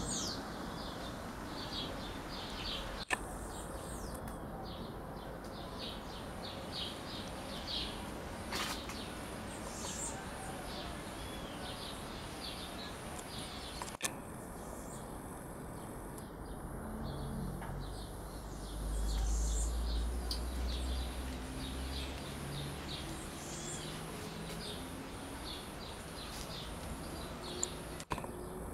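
Birds chirping outdoors: short high calls repeat throughout over a steady background hiss, with a low rumble about two-thirds of the way through.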